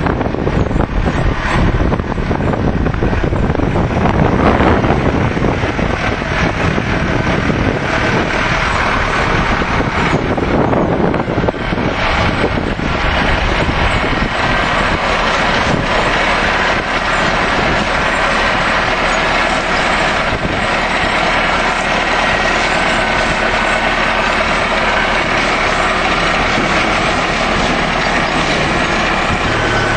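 ASA-LIFT beetroot harvester at work, its conveyors and elevator chains running with a loud, steady mechanical noise and an engine running underneath.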